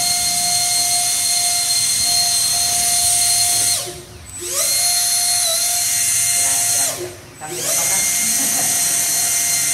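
Electric ducted fan of a small RC air boat running at high speed with a steady high whine. Twice, about four seconds in and again about seven seconds in, the throttle drops and the whine falls in pitch, then spools back up within about a second.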